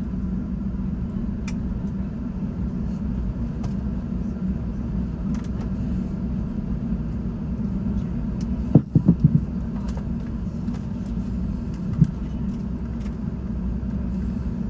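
Steady low rumble inside the cabin of a British Airways Airbus A380 rolling on the ground after touchdown. A quick cluster of four thumps comes about nine seconds in, and a single thump about three seconds later.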